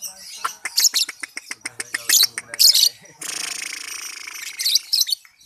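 Young lovebird chirping: sharp high chirps among fast chattering clicks. A harsh buzzing noise lasts about a second and a half past the middle.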